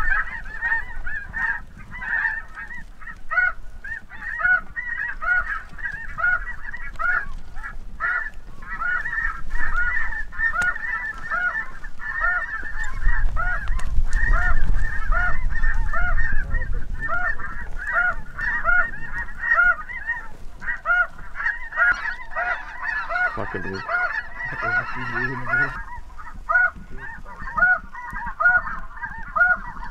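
Snow goose calls: a dense, continuous chorus of short honks, many overlapping each second. A low rumble swells around the middle.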